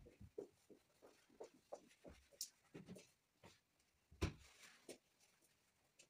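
Faint, irregular brush strokes and dabs of paint on a wooden painting board, short scratchy strokes two or three a second, the loudest about four seconds in.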